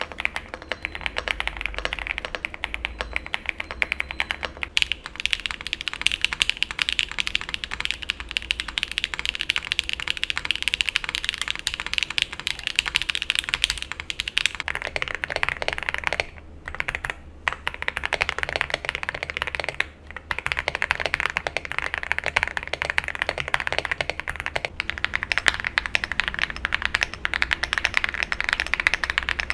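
Fast typing on custom mechanical keyboards with lubed switches: a dense stream of keystrokes. The sound changes character about five seconds in and again near the middle as one board gives way to the next, and there are short breaks in the typing around the middle.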